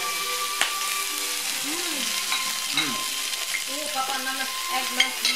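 Food sizzling steadily on the hot plate of a tabletop gourmet grill, with two sharp clicks, about half a second in and near the end.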